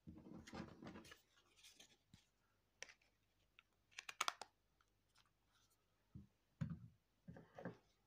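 Hands handling an Alcatel OT-880 slide phone: rustling and scraping of the plastic body, a quick cluster of sharp plastic clicks about four seconds in as the back cover is fitted, and a few light knocks near the end as the phone is set down on a wooden table.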